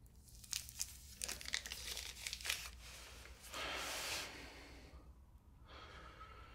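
Rustling and crinkling handling noises: a run of short scratchy crackles, then a longer, louder rustle about three and a half seconds in, and a softer one near the end.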